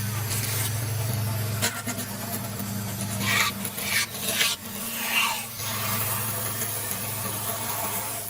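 5-axis CNC router running with a steady low hum, its cutter rasping through foam in several short scratchy bursts around the middle.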